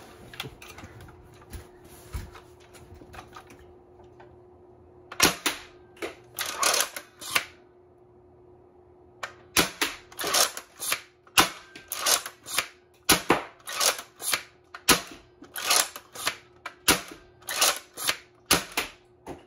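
Homemade 3D-printed pump-action foam-dart blaster with a heavy K25 spring, primed and fired over and over: sharp clacks and pops of the pump and shots. There are a few about five to seven seconds in, then a quick string of them about every half second from about ten seconds on.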